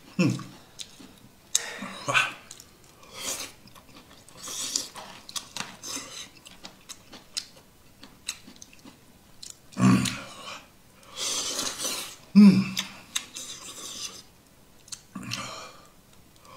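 A person eating with chopsticks from a plastic self-heating hotpot tray: chewing and mouth noises in irregular spurts, chopsticks clicking on the tray, and a few short hums between mouthfuls.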